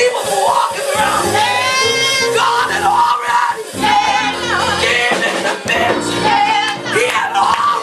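Music with singing voices over steady accompaniment with bass notes.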